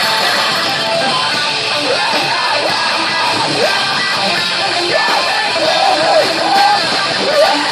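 Heavy metal band playing live, distorted electric guitars over a dense, loud wash, with gliding pitched lines above it.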